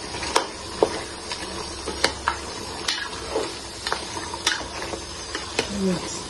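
Spatula stirring pork and soaked dried red chillies in a steaming aluminium pot, with sharp scrapes and knocks against the pot over a steady sizzle.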